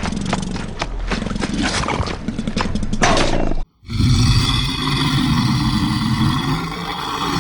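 Two monster roar sound effects, one after the other: a raspy roar that cuts off suddenly a little over halfway through, then, after a moment's silence, a second roar.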